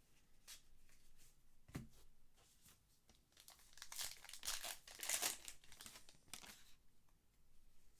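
Trading-card pack wrapper being torn open and crinkled by hand, a quiet crackling that comes in a rush in the middle.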